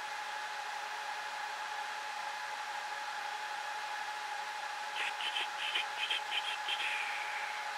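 Dell PowerEdge 2650 server's cooling fans running at a steady rush with a constant whine while the machine boots. About five seconds in, a quick run of seven or eight high chirps ends in a short falling tone.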